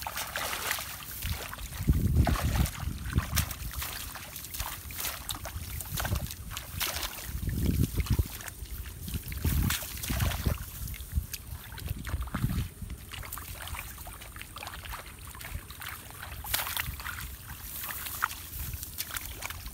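Hands splashing and sloshing in shallow muddy rice-field water while groping for fish, in irregular bouts, with a few dull low rumbles.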